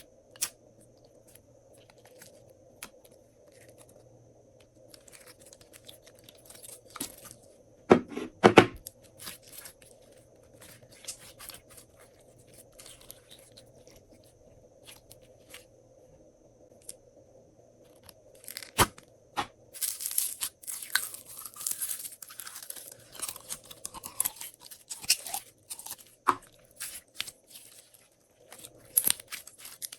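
Glossy slime being worked by hand: scattered sticky clicks and pops, two loud knocks about eight seconds in, and a dense run of crackling from about twenty seconds to about twenty-seven.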